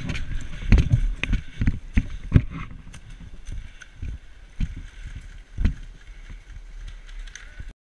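Footsteps crunching on gravel with gear jostling, heard through a helmet-mounted camera as the wearer moves, in irregular thumps that come thickest early and then more sparsely. The sound cuts off abruptly near the end.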